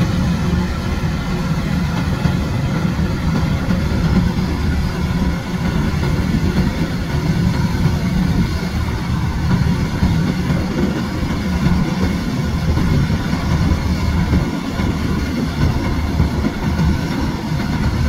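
Kubota tracked rice combine harvester running steadily while cutting and threshing rice: a continuous engine and machinery drone with a humming, whirring layer above it.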